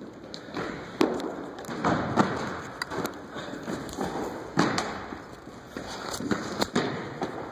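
Irregular thumps and taps, sometimes several a second, echoing in a large gym hall: footfalls and bounces on a hardwood court.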